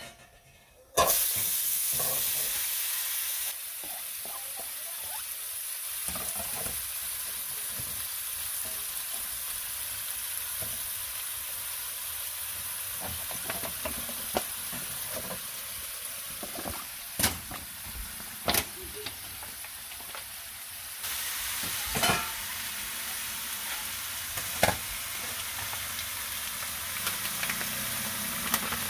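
Sliced onion, shiitake mushrooms and green onion going into hot oil in a nonstick wok about a second in and sizzling steadily, loudest at first and again in the last third. A few sharp clicks of a utensil against the pan now and then.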